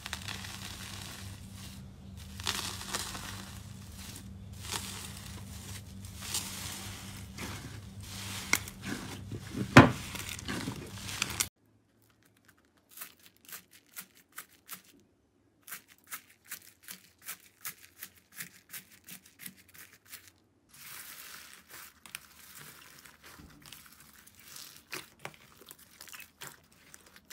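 Fingers pressing and tearing metallic foil wrapped over a slime dome: dense crinkling with one sharp, loud crackle about ten seconds in. After a brief quiet gap, a hand squeezing slime full of foam beads: many small separate crackles and pops, turning to softer squishing near the end.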